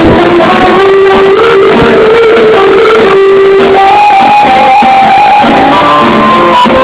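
Loud live band music: a piano accordion playing a melody of held notes, with electric guitar and keyboard accompaniment.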